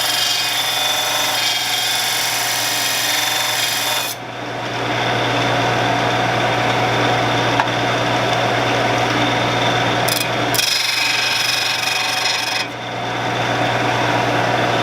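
A Shopsmith running steadily with a wood-lathe tool pressed against its sharpening abrasive: a steady motor hum under a harsh grinding hiss. The grinding eases off briefly about four seconds in and again near the end.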